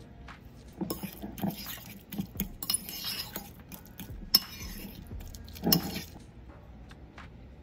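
A metal fork mashing and stirring avocado in a bowl, scraping and clinking against the bowl in an irregular run of strokes. There is a sharp clink about four and a half seconds in and a louder knock near six seconds.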